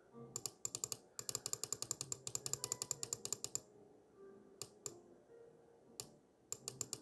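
Computer keys clicking in quick, evenly spaced runs of about ten clicks a second, then a few single clicks near the end.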